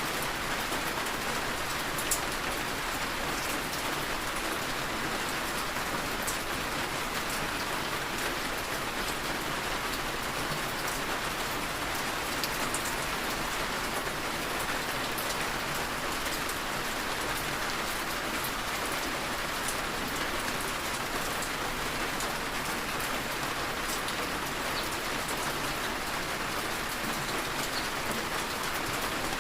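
Heavy rain falling steadily on surfaces, an even hiss of rain with occasional sharper drop ticks.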